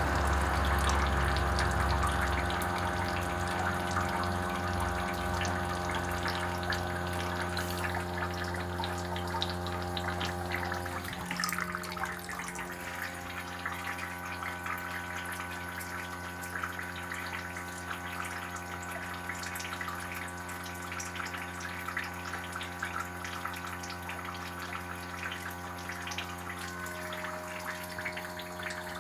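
Haier heat-pump air conditioner in its defrost cycle: a steady machine hum with several held tones under a continuous trickling, running-water sound. About eleven seconds in, the low hum drops away and the unit gets a little quieter.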